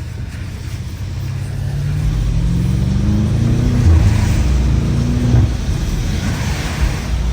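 BMW M5 Competition's twin-turbo V8 accelerating hard: the revs climb, drop at an upshift about four seconds in, climb again and drop at a second shift about a second and a half later. Tyre hiss from the wet road runs underneath.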